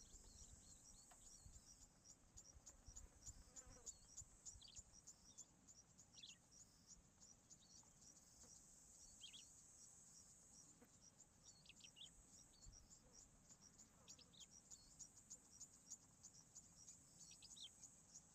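Faint, high-pitched insect chirping that pulses evenly, a few times a second, with occasional short bird chirps.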